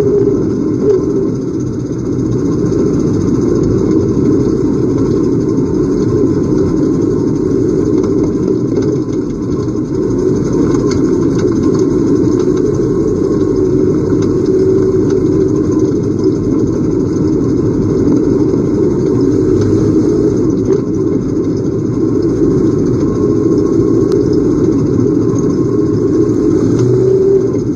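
Several Pure Stock race car engines running hard under racing load, a loud, steady engine sound that swells and eases a little as the cars circle the track.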